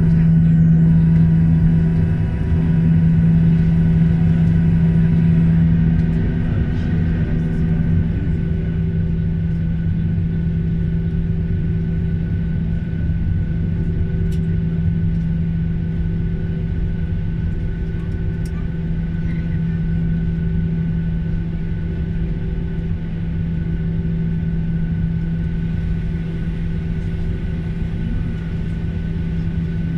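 Boeing 737-800's CFM56-7B jet engines idling, heard inside the cabin: a steady low hum over a rumble, easing slightly about eight seconds in.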